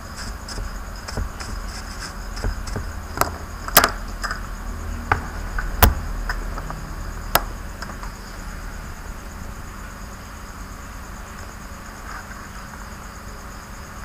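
Scattered clicks and knocks from hands handling an opened laptop, the sharpest five or six coming between about three and seven and a half seconds in, over a steady high-pitched drone in the background.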